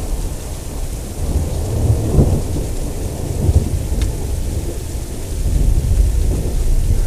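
Thunder rumbling low and continuously, swelling several times, with rain falling during a heavy thunderstorm.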